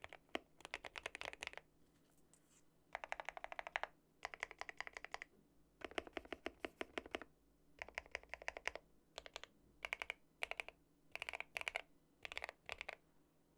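Typing on a mechanical keyboard with Gateron Black Ink V2 linear switches, in a GMMK Pro with a polycarbonate plate and PE foam mod. Quick runs of keystrokes come in bursts of a second or two, with short pauses between.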